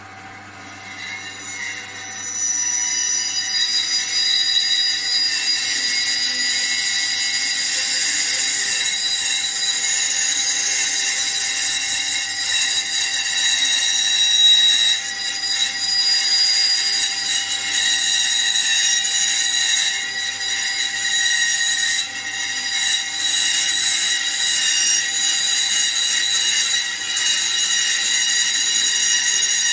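Bandsaw cutting through a round section of log, the blade making a steady high whine over the low hum of the motor. The cut starts about two seconds in and runs on with only small dips.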